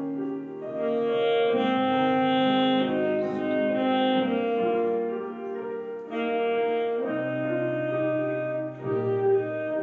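A solo wind instrument, clarinet-like in tone, plays a slow melody of held notes with piano accompaniment.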